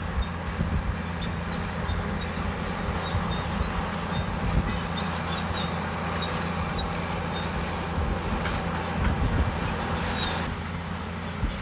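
Komatsu D65EX crawler bulldozer's diesel engine running steadily under load, with scattered clanks and high squeaks from its steel tracks.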